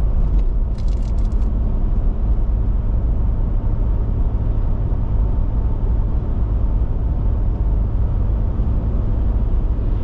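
Steady road and engine rumble of a car driving at highway speed, heard from inside the cabin, with a few brief clicks or rattles about a second in.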